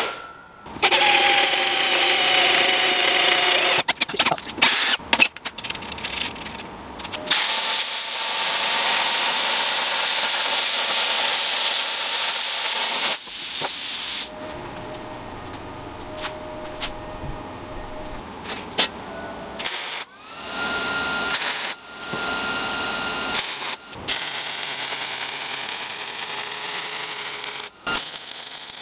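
Power tools working steel, heard as a string of short clips cut abruptly one into the next: stretches of loud hissing noise and steady motor whine.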